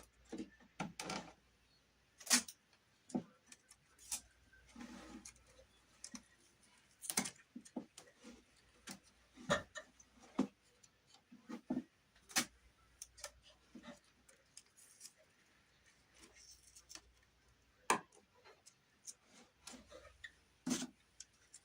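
Irregular light clicks and taps, a few seconds apart and sometimes in quick pairs, with brief rustling: small wooden beam pieces and tape being handled and set in place by hand.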